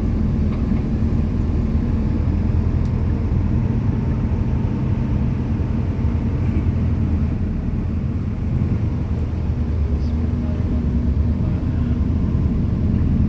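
Steady low engine rumble that holds at an even level without rising or falling.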